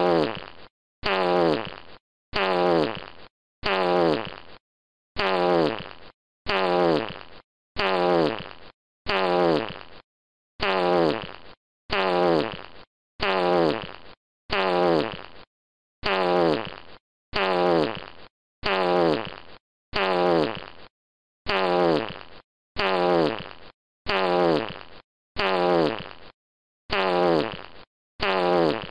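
A fart sound effect repeated over and over, about once a second. Each one starts suddenly, drops in pitch and fades away over about a second, followed by a short silence.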